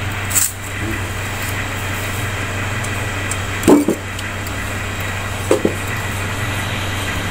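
Motorbike engine idling steadily as it warms up, a continuous low drone, with a few brief voice sounds over it.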